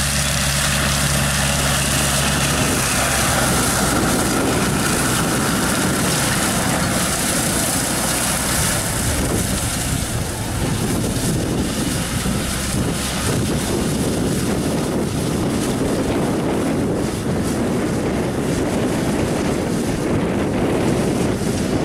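Kubota L5018 tractor's diesel engine running steadily under load while driving a rear-mounted straw slasher that cuts through dry rice stubble.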